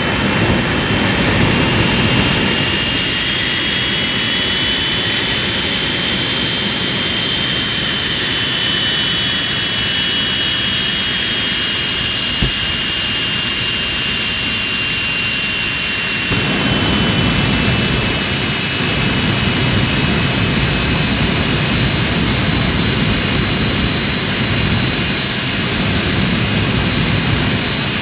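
Jet engine running steadily at high power: a loud, even roar with several high whining tones drifting slightly in pitch. The low rumble fills out again about halfway through.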